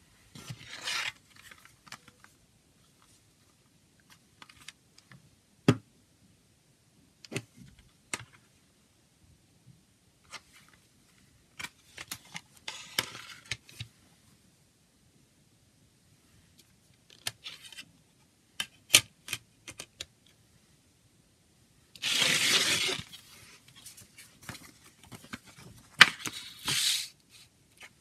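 Plastic CD jewel case being handled and opened, with scattered sharp clicks and knocks. Paper from the folded booklet rustles in short bursts as it is pulled out and unfolded; the longest and loudest rustle comes about three quarters of the way through.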